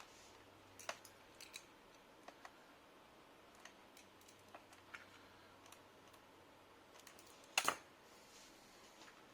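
Scattered small plastic clicks and taps as a plastic pry tool works at the edge of a laptop's plastic rear cover, with a louder, sharp double click about three quarters of the way through.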